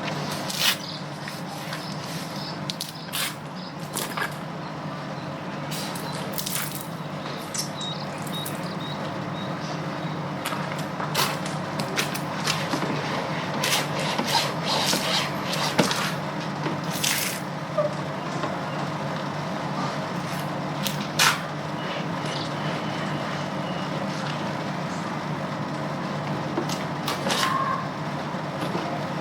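Motorcycle being washed: short hissing bursts of sprayed water and occasional knocks over a steady motor hum.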